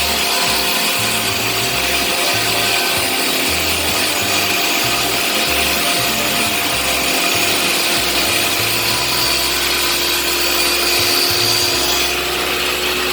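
An electric power tool running steadily on wood, a continuous loud rasping noise.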